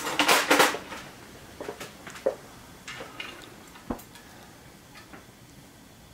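Small metal parts clicking and scraping inside a Bernina 217 industrial sewing machine's cast arm as a long screwdriver works at its screws: a short clatter about half a second in, then scattered single ticks.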